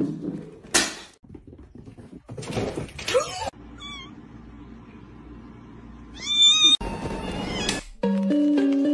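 Kitten meowing: a thin, high mew about four seconds in and a louder one a little after six seconds, among scattered knocks and rustles. Near the end a simple melody of held notes begins.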